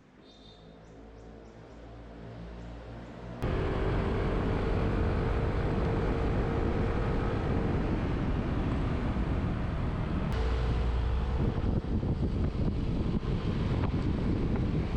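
A vehicle engine running while on the move, with wind rushing over the microphone. It grows louder over the first few seconds, then jumps suddenly to a much louder rumble about three and a half seconds in.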